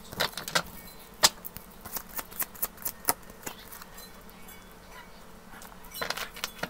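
Tarot cards being shuffled and handled by hand: a run of quick, irregular card clicks and slaps, a quieter pause, then a few more clicks near the end.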